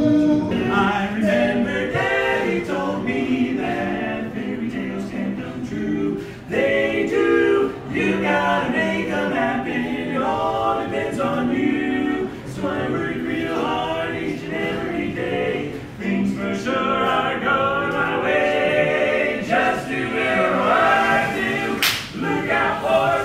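Barbershop quartet of men singing a cappella in close four-part harmony, phrase after phrase with short breaths between. A single sharp click near the end.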